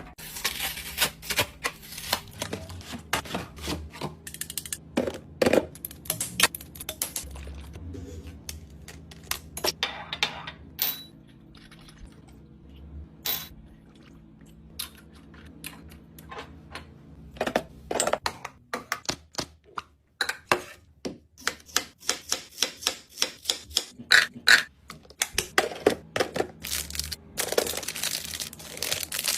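Many short clicks, taps and knocks with bursts of crinkling plastic packaging as items are handled and set into a mini fridge. They thin out around the middle, then come thick and fast in the last ten seconds.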